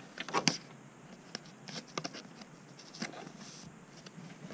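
Trading cards and plastic card sleeves being handled: scattered light taps and scrapes, with a brief higher rustle about three and a half seconds in, as the cards are slid into sleeves.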